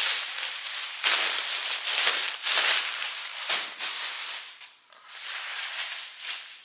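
Plastic shopping bag crinkling and rustling as items are dug out of it, in several loud surges with a brief lull about five seconds in.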